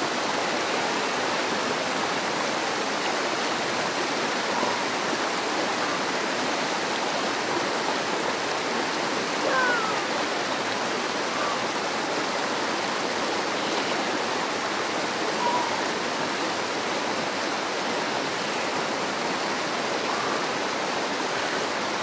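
Mountain creek water rushing steadily: a constant, even hiss of flowing water.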